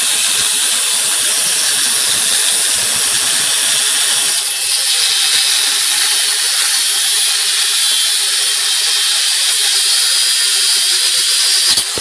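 Angle grinder cutting a car's coil spring, a steady loud hissing grind held for the whole stretch.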